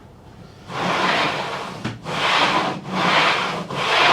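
A boat's stiff sliding hatch being pushed back and forth on its rails, about four rubbing, scraping strokes of just under a second each. The rails have just been sprayed with WD-40, and the hatch still drags a little.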